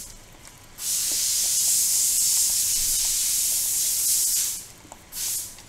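A plaster spatula stirs and scrapes wet dental plaster around a mixing bowl, making a gritty hissing scrape. It runs in one long spell from about a second in, then a short one near the end. Extra dry powder is being worked into a mix that was too runny, to reach a creamy thickness.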